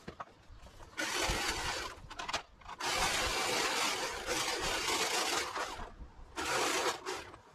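Scraping and rustling from hand garden clean-up work, in three bursts: a short one about a second in, a long one of about three seconds, and a short one near the end.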